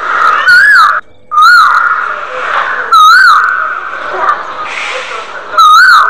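A loud warbling whistle-like tone, repeated four times, each phrase rising and falling in pitch over a steady high tone, with a brief cut-out about a second in.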